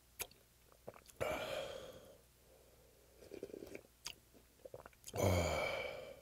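A person slurping soup straight from a bowl: two loud slurps, about a second in and near the end, with small lip and swallowing sounds between.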